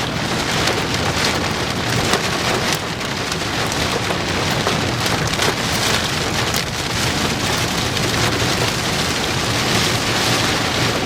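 Rain falling steadily and hard on a car's roof and windshield, heard from inside the cabin as a dense, even patter of drops.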